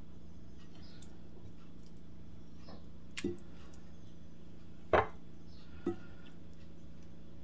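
Chicken drumsticks set into a ceramic bowl of fermented milk: three short wet knocks and splashes, the loudest about five seconds in, over a steady low hum.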